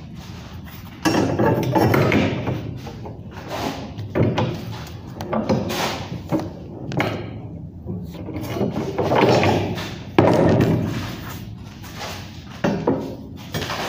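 Steel reinforcing bar being handled and bent by hand into a ring, with irregular clanks, knocks and scraping of the metal. Sharp knocks come about a second in, around ten seconds in and near the end.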